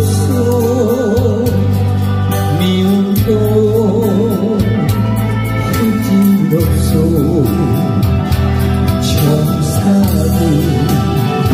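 A male trot singer singing live into a handheld microphone with vibrato, over instrumental accompaniment with a steady bass and beat.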